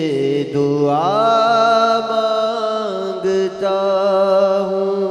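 Male naat singer's voice holding a long, wavering unaccompanied note that glides upward about a second in and then holds, over a steady lower drone of voices.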